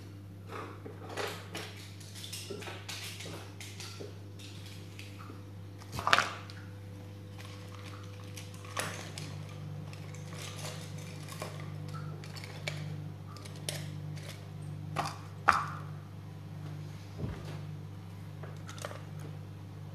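Small objects being handled and set down on a wooden desk: scattered light clicks and knocks, with two louder knocks about six seconds in and about fifteen seconds in, over a steady low hum.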